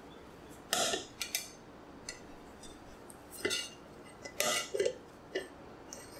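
Metal bread-maker pan clanking and knocking as it is handled and the finished dough is turned out of it, in several short, sharp clatters.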